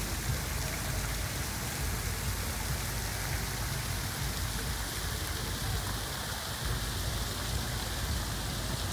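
Rock-built park fountain: water falls from its rock tower and splashes into the pool below, a steady rain-like hiss with a low rumble underneath.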